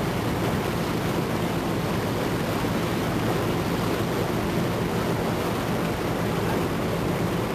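Steady drone of a motor cruiser under way, with wind on the microphone.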